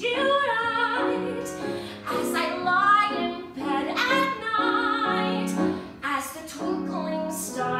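A woman singing a cabaret song with piano accompaniment, her voice moving through held and changing notes.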